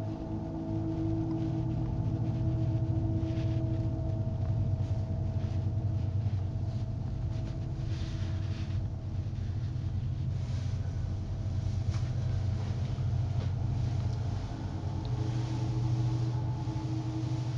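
Low, steady droning horror-film score: held tones over a deep rumble, with faint scattered ticks.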